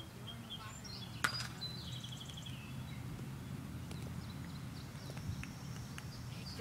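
Outdoor ambience: birds chirping in short trills over a steady low background rumble, with one sharp click about a second in.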